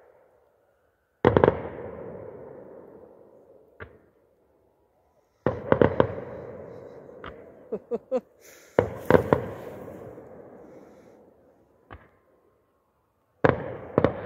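Fireworks exploding in a string of sharp bangs, some single and some in quick clusters, with a few smaller pops. Each bang trails off in a long fading rumble.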